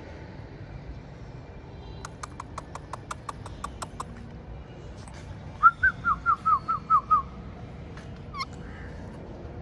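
Pet parrot whistling a quick series of about eight short, loud chirps, each falling in pitch, with one sharp call shortly after. Before the chirps comes a rapid run of faint clicks.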